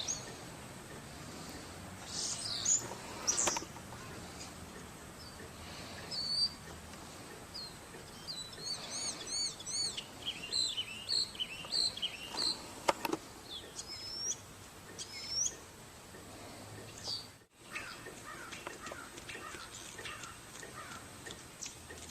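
Small birds chirping: scattered short, high chirps, coming thick and fast in the middle of the stretch, over a steady background hiss.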